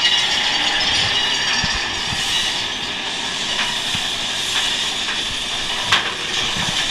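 Big Thunder Mountain Railroad roller coaster train running along its track through a tunnel: a steady rushing hiss with scattered clicks from the wheels and track, and one sharp click about six seconds in.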